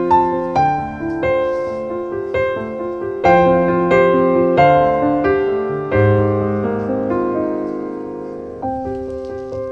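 Background piano music, a gentle melody of single notes and chords that each strike and fade.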